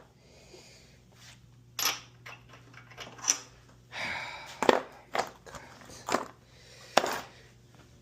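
Hand tools knocking and clanking against the metal parts of a lawn mower under repair: a string of sharp single knocks with a short scrape about four seconds in, the loudest knocks near five and seven seconds. A faint steady hum runs beneath.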